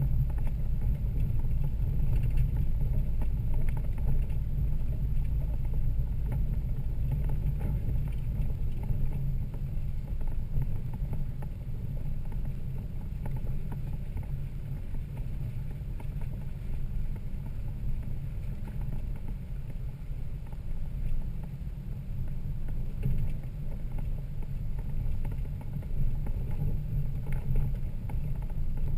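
Toyota Land Cruiser 80 Series on an off-road trail: a steady low engine and drivetrain rumble, with a few faint knocks and rattles over it.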